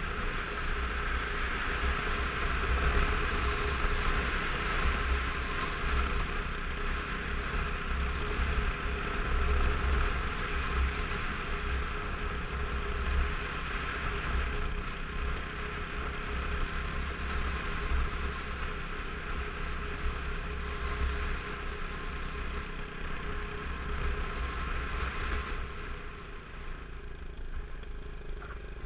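Motorcycle engine running at steady cruising speed over a gravel forest road, mixed with wind buffeting on a helmet-mounted camera. The sound drops a little near the end as the bike slows.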